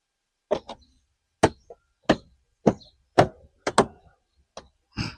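Plastic body panel on a Can-Am Spyder being struck by hand to snap its clips home: about nine sharp knocks at an uneven pace, roughly two a second.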